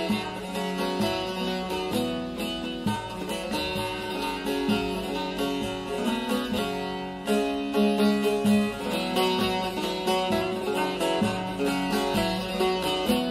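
Instrumental introduction to a Turkish folk song: plucked string instruments play a busy, continuous melody over a sustained low accompaniment, without vocals.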